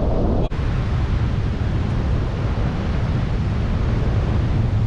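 Wind buffeting the microphone of a paraglider in flight: a steady, loud, low rumble with hiss, dropping out for an instant about half a second in.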